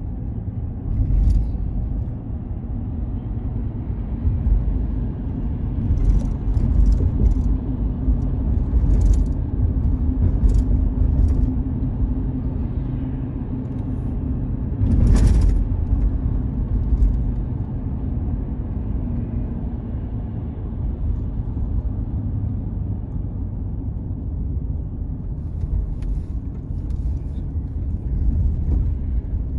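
Road noise inside a moving car: a steady low rumble of tyres and engine, with a brief louder swell about halfway through.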